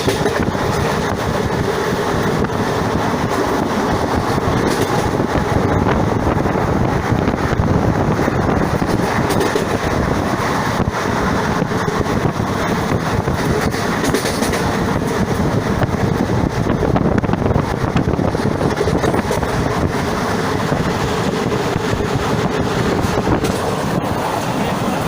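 A moving train heard from on board: a steady rumble of wheels on the rails, with occasional clacks over rail joints.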